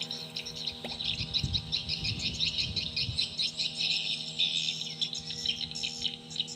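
Small birds chirping busily in many quick notes, with a few low thuds about one to three seconds in.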